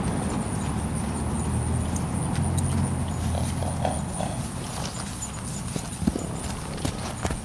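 Hoofbeats of an Appaloosa–Hanoverian cross filly trotting and cantering on dry paddock ground, with a few sharper knocks about six seconds in and near the end. A low steady rumble runs under the first half.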